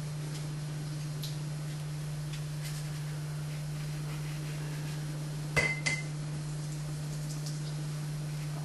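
A steady low hum, with two quick clinks about five and a half seconds in, from a paintbrush knocking against the painter's palette.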